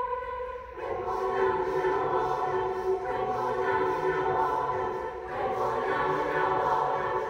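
Large mixed choir singing sustained chords, the full chord coming in about a second in and a new phrase beginning about five seconds in.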